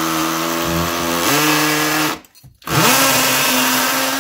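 Cordless drill with a 7 mm bit drilling a pilot hole into a concrete floor. The motor whine steps up in pitch about a second in, stops just after two seconds, and spins back up half a second later.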